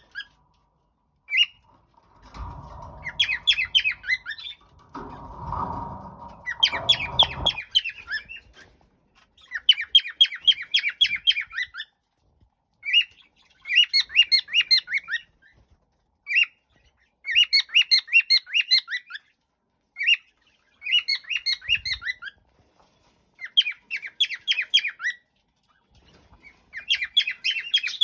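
Cockatiel giving repeated bursts of rapid, harsh chattering squawks, each burst a second or two long, coming every couple of seconds. A low background noise runs under the calls for several seconds near the start.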